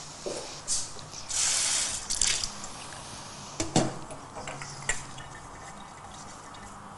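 Kitchen tap running briefly at the sink about a second and a half in, followed by several sharp clinks and knocks of dishes or a glass being handled and set down.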